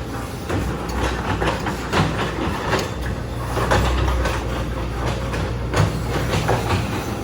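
Backhoe's diesel engine running steadily under load, with irregular metal clanks and knocks as the bucket and arm work.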